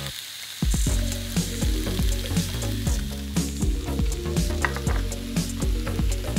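Zucchini, bell pepper and onion slices sizzling and crackling on a ribbed electric grill plate, starting about half a second in, with soft background music underneath.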